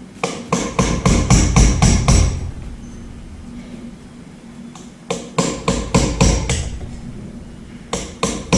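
Hammer striking metal in quick runs of about four to five blows a second, knocking a stuck bearing off a ceiling fan's stator shaft. There are two runs, with a few more blows starting near the end.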